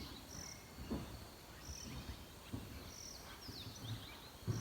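Faint bush ambience: a short, high chirp repeats about every second and a bit, and a quick run of falling whistled notes comes a little past three seconds in. A few soft low thumps sound in between.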